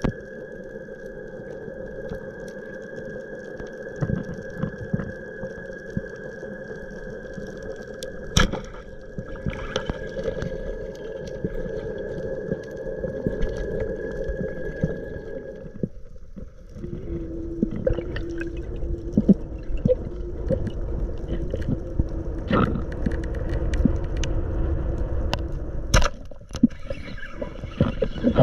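Underwater sound picked up by a diver's camera: water noise with steady humming tones and a few sharp clicks or knocks, one a little under a third of the way in and one near the end. About halfway through, a high steady tone stops and a lower hum takes over.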